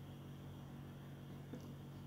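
Quiet room tone with a faint steady low hum and hiss, and one faint tick about one and a half seconds in.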